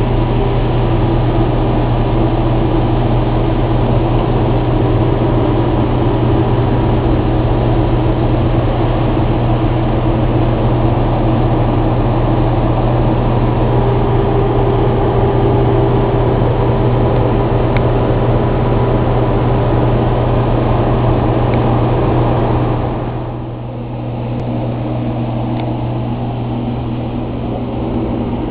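Aircraft auxiliary power running steadily: a loud mechanical drone with a strong low hum and several steady tones. It eases somewhat about 23 seconds in.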